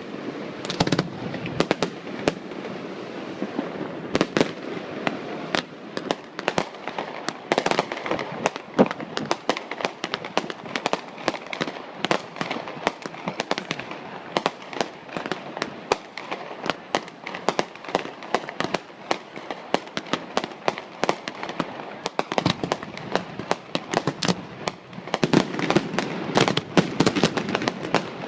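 Harbour fireworks display going off: a rapid, irregular run of bangs and crackles, growing denser near the end.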